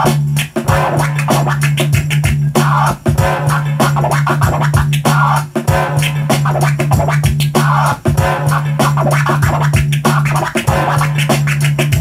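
Vinyl record scratching on turntables: the record pushed back and forth under the hand in quick pitch swoops, chopped on and off by the mixer's fader, over a sustained low bass tone that cuts in and out.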